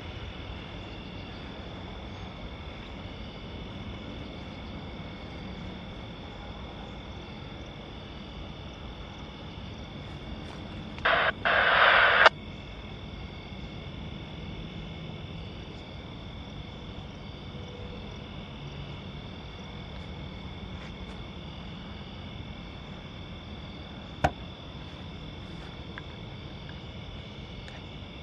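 Steady evening chorus of crickets and other insects, thin high trilling over a low hum. About eleven seconds in, a loud burst of hiss lasting just over a second, in two parts, cuts in and stops abruptly. A single sharp click comes later.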